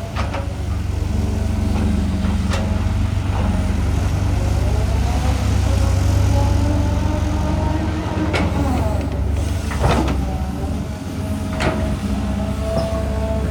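Cat 320 GC hydraulic excavator working: its diesel engine runs with a steady low rumble under a hydraulic whine that glides up and down in pitch, and about five sharp metallic clanks are scattered through.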